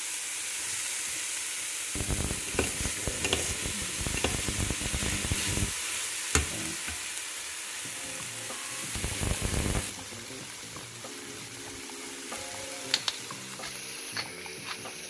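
Chopped onions, bell pepper and spring onion sizzling in oil in a stainless steel pan. A spoon stirs and scrapes against the pan for several seconds, then the sizzling carries on more quietly.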